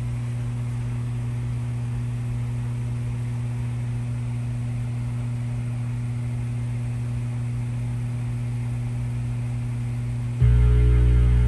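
Steady amplifier hum from an electric guitar plugged into an amp. About ten seconds in, a low chord on the seven-string Ibanez Universe is struck and rings out loud through the amp.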